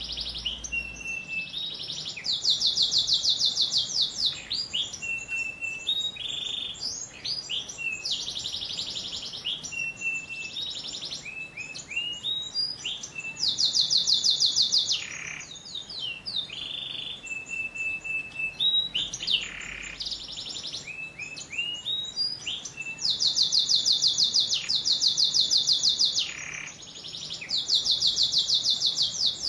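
Domestic canary singing a long, unbroken song of rapid rolling trills, the loudest runs lasting one to three seconds, linked by short chirps and quick whistled notes.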